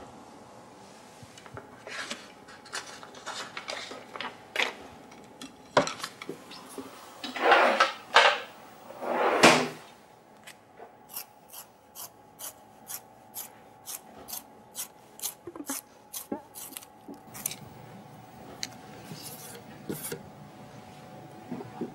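Handling noises: scattered knocks and clicks, then a few loud scraping rubs about halfway through. After that comes a run of light, evenly spaced clicks, about three a second.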